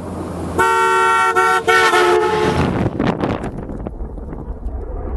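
A vehicle horn honking three times in quick succession, the last blast the longest and dipping slightly in pitch partway through, followed by a low, noisy rumble.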